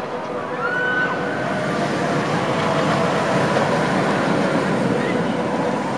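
Steel looping roller coaster train running on its track, a steady rumbling rush that grows louder as the train approaches.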